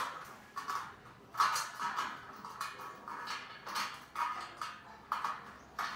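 Steel parts of a flat-pack computer table being handled during assembly: about a dozen irregular light metallic clinks and knocks, each with a short ring.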